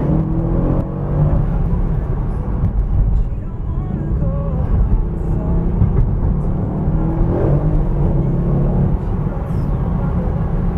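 Mercedes CLS 63 AMG's V8 engine heard from inside the cabin while driving at low speed: a deep, steady drone mixed with road noise.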